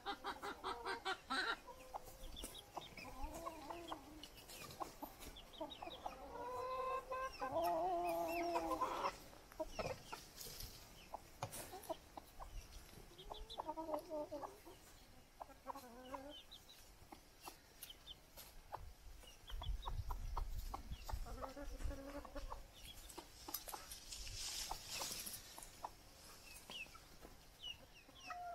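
Chickens clucking and calling, many short calls scattered throughout, with a few longer drawn-out calls.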